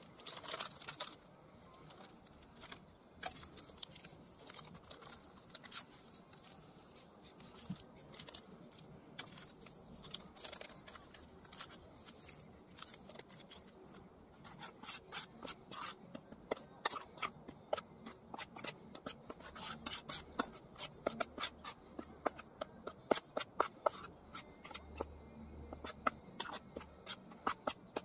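Metal spoon stirring and scraping dry flour in an enamel bowl: a run of short, irregular scrapes and taps that come quicker and closer together in the second half.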